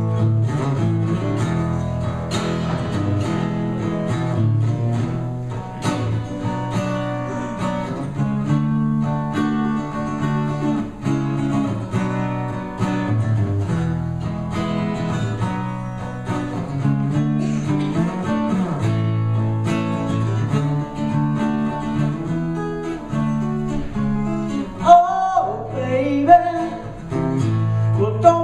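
Acoustic guitar played solo, the introduction to a song, with a man's voice starting to sing near the end.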